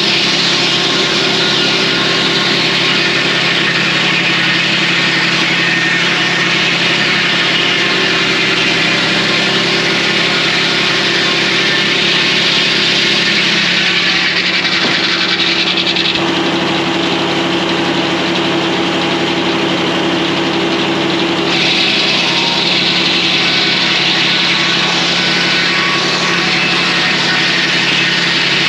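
Circle sawmill running, its engine holding a steady note while the blade saws hemlock logs into cants, with a bright sawing hiss over it. The hiss eases for about five seconds past the middle, then picks up again.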